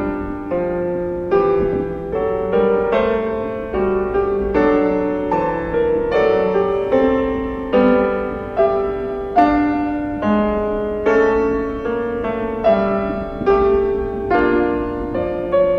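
Piano music: a slow, gentle piece of sustained notes and chords, a new note struck a little more than once a second in a steady pulse.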